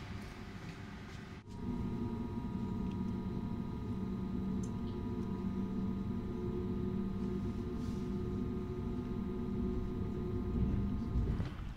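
Electric train running, heard inside the passenger car: a steady hum made of several even tones over a low rumble. Quieter station ambience before an abrupt cut about a second and a half in.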